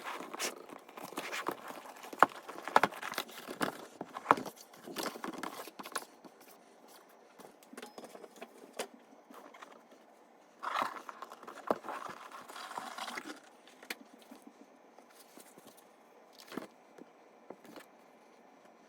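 Hands unpacking a keyboard from its box: packaging rustling and sliding, with many light knocks and clicks for the first six seconds. A longer rustle comes about eleven seconds in, and then only a few scattered taps.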